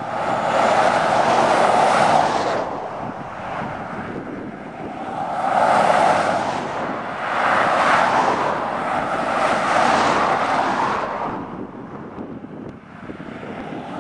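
Cars, pickup trucks and a truck-mounted radar of a convoy passing one after another on an open highway. Their tyre and engine noise swells and fades about four times, loudest in the first two seconds and again around six seconds in.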